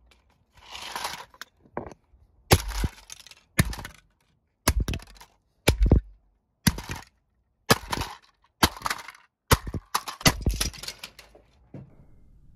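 Plastic Peppa Pig toy telephone being smashed: about ten sharp, hard blows roughly a second apart, the last few coming closer together, with plastic cracking and breaking pieces rattling between the blows.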